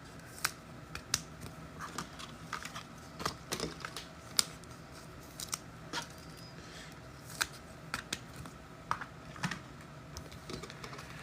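Trading cards and packs being handled on a table: scattered, irregular sharp clicks and light taps, several seconds apart, over a low room hum.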